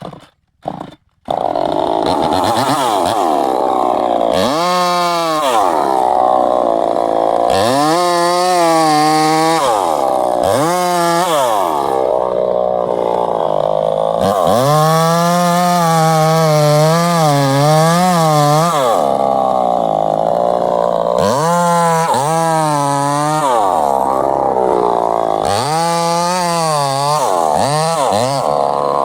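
Gasoline chainsaw engine running and being revved up and down again and again, with its pitch climbing and falling about seven times. It is held at high speed for a few seconds at a time, longest in the middle. It starts with a few short bursts in the first second.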